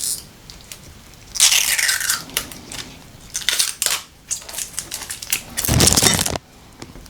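Handling of small plastic phone-shell parts: a scraping rustle about a second and a half in, a run of sharp clicks, then a louder rub or bump near the end.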